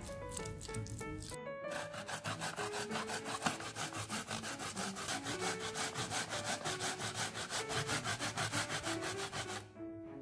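A raw potato being grated by hand on a plastic grater plate: quick, even rasping strokes, about five or six a second. The strokes start about a second and a half in and stop just before the end.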